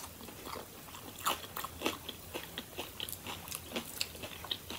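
A tortilla chip being crunched and chewed, close to the microphone: a string of irregular crisp crunches.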